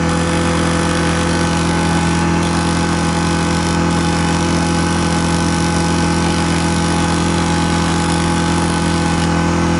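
Small generator engine running steadily at a constant speed, with the hiss of a high-pressure washer's water jet over it.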